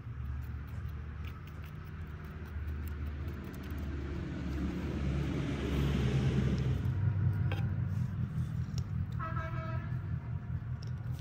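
A motor vehicle's engine running steadily, growing louder around the middle, with one short horn toot about nine seconds in. A few light clicks of a knife against a metal plate.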